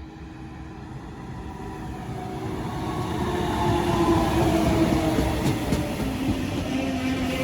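A train approaching and passing, growing steadily louder to a peak about four to five seconds in. Its humming tone drops in pitch as it goes by, over a rumble of wheels on rails.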